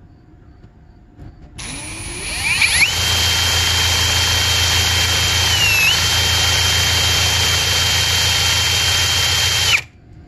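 Ryobi brushless cordless drill spinning a snowmobile oil injection pump backwards through a flathead bit, to prime the pump and its oil lines. The drill winds up about a second and a half in and runs at a steady high whine. Its speed dips briefly around the middle, and it cuts off suddenly near the end.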